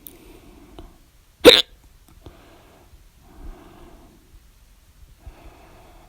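A person's single loud hiccup, short and sharp, about a second and a half in.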